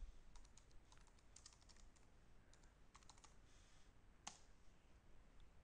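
Faint typing on a computer keyboard: a run of quick key clicks for about three seconds, then a single sharper click about four seconds in.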